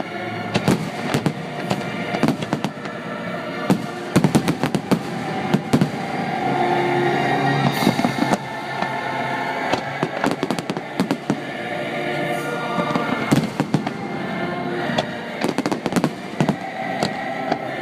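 Fireworks exploding in many irregular bangs and crackles, at times in quick clusters, over the show's sustained music.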